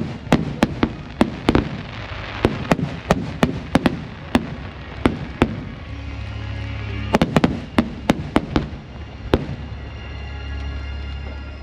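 Aerial firework shells bursting in quick succession, a rapid string of sharp bangs that thins out about halfway, with a few more bangs a little later. From about six seconds in, music plays along with a steady deep rumble.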